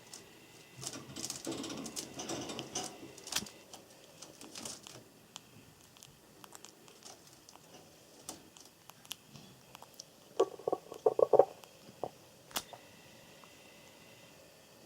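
Java sparrow making a quick run of about five short sneeze-like puffs within about a second, two-thirds of the way in. Earlier there is a brief burst of rustling, and light clicks are scattered throughout.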